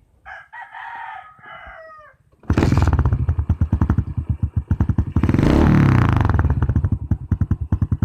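A rooster crows once near the start. About two and a half seconds in, a Fury 125 motorcycle engine starts up, loud and rhythmic through an aftermarket Taikom power exhaust with no steel wool packing, only fiber, and its silencer removed. It revs up once around the middle and drops back to an uneven idle beat.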